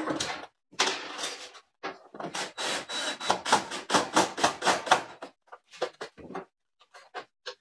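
Cordless drill-driver screwing a wall cabinet to the wall: a short run of the drill, then a fast train of knocks, about five a second, for some three seconds, and a few scattered knocks near the end.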